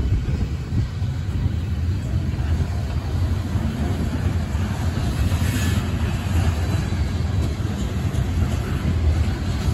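Freight train of covered grain hopper cars rolling past, steel wheels on the rails making a steady low rumble.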